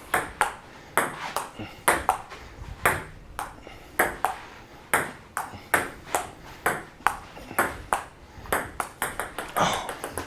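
Table tennis rally: a ping-pong ball clicking back and forth off the paddles and the table, about three sharp clicks a second without a break.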